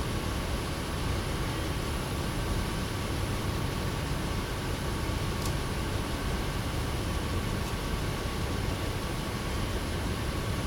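Steady background noise: a low rumble under an even hiss, with no distinct events.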